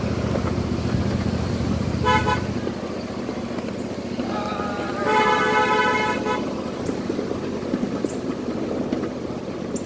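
A small ride-on train's horn tooting twice, a short toot about two seconds in and a longer one about five seconds in, over the low rumble of the train running.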